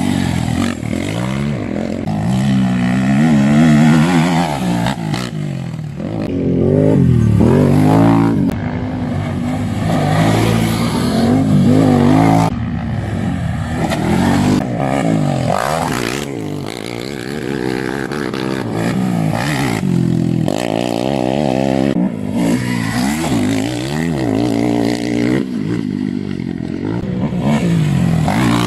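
Racing quad bikes (sport ATVs) on a dirt track, their engines revving hard and easing off again and again as they accelerate, shift and brake.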